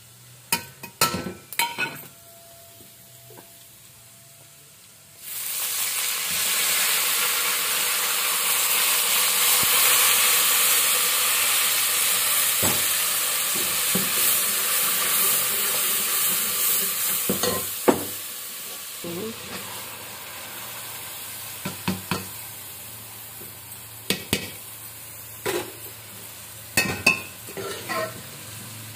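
Spices and fried onions sizzling in hot oil in an aluminium pot, with a steel spoon clinking and scraping against the pot as the masala is stirred. The sizzle starts suddenly about five seconds in and dies down about two-thirds of the way through. After that come scattered clinks and taps of the spoon.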